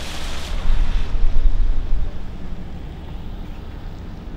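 A car driving, with low, rumbling wind buffeting on the microphone and road noise. A hiss cuts off about half a second in, and the buffeting is strongest over the next second or so.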